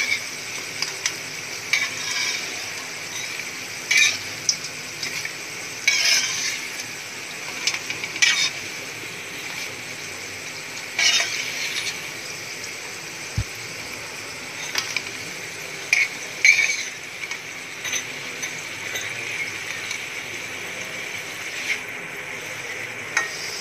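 Stick samosas deep-frying in hot oil in a steel pan, a steady sizzle. Every few seconds a metal spatula scrapes and clinks against the pan as the samosas are turned.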